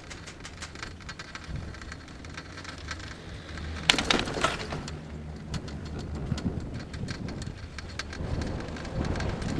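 Chairlift in motion: a steady low rumble with dense crackling and clicking from the lift, and a louder burst of rattling about four seconds in.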